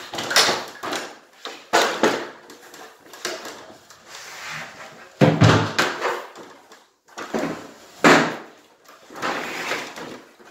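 Handling noise from hands-on work at a smoke detector and its wiring: irregular rustles, scrapes and knocks, with a heavier thump about five seconds in.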